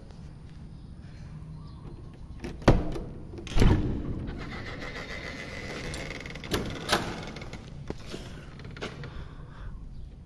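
A wooden door with a knob latch being opened: two sharp clunks about two and a half and three and a half seconds in, then a few seconds of creaking and scraping with a thin squeak, and two more knocks as it swings. Faint footsteps tap through the rest.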